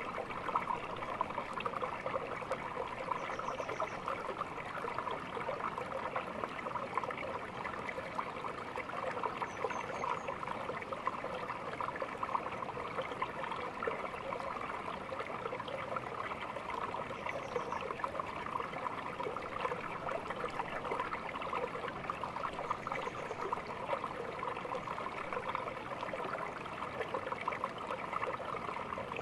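Small stream trickling and babbling steadily over stones.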